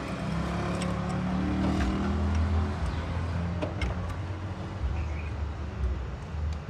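Toyota Corolla XLi's four-cylinder VVT-i petrol engine revving up over the first couple of seconds, then settling back and running steadily, with a few light clicks near the middle. The car is being checked for a VVT-i system noise problem.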